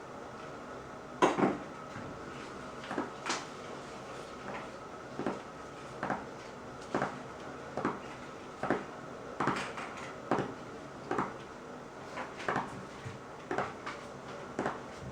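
Gerbil drumming its hind feet against the floor of its enclosure: a series of short, sharp knocks at uneven spacing, roughly one a second, the loudest about a second in.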